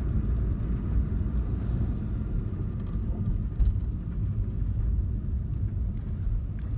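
A car driving, heard from inside the cabin: a steady low rumble of engine and road noise, with a single small knock a little past halfway.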